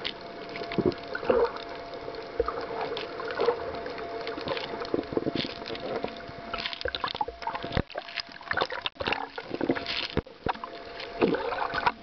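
Water sloshing and crackling against an underwater camera, with irregular clicks throughout and a steady faint hum that stops about eight seconds in.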